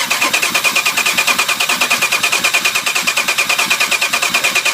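A car's starter motor cranking the engine over in a fast, even rhythm without it catching, even with starter fluid sprayed in. This is a crank-no-start, which the mechanic takes for a fuel delivery issue.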